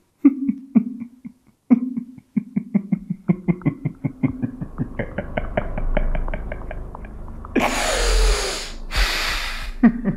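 A man laughing, starting in short separate bursts and building into a rapid run of pulses about five a second, broken near the end by two loud rushing breaths.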